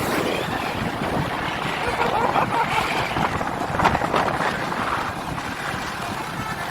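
Wind buffeting the microphone over road traffic noise, with a few faint voices about two seconds in.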